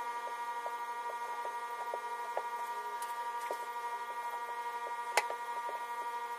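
A steady electronic drone of several held tones, with faint irregular light clicks under it and one sharp click about five seconds in.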